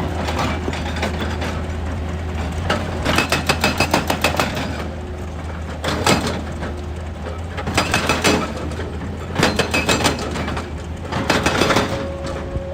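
Excavator's engine running steadily, with repeated bursts of rapid clattering knocks every second or two.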